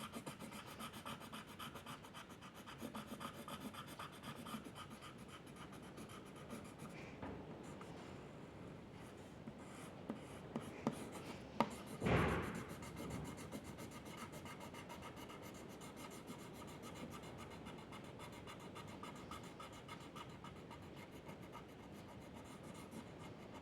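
A drawing instrument scratching on paper in quick, repeated strokes, with one louder scrape about halfway through.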